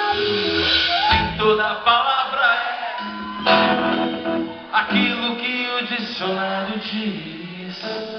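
Live band music heard from the audience in a large hall: acoustic guitar with a male voice singing.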